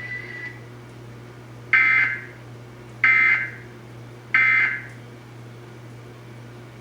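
Emergency Alert System end-of-message signal: three short bursts of SAME digital data tones, about a second and a quarter apart, over a steady low hum.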